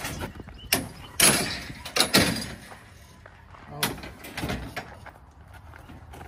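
Metal goat squeeze chute banging and rattling in several sharp bursts over the first five seconds as a goat struggles in it.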